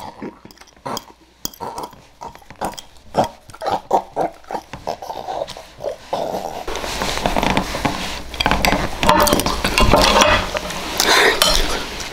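Exaggerated mouth noises of a person eating and licking a plate: a run of short wet smacks and clicks at first, then about six seconds in a louder, continuous stretch of slurping and snuffling with the plate held up to the face.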